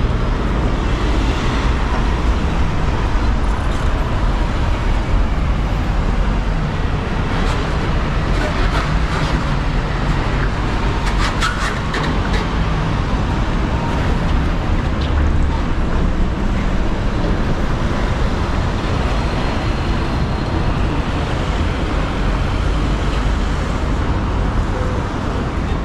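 Busy city street traffic: cars, buses and vans passing with a steady low rumble, and a short cluster of sharp clicks about halfway through.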